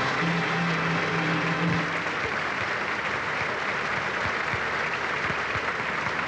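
Circus audience applauding steadily, with a held musical note underneath that stops about two seconds in.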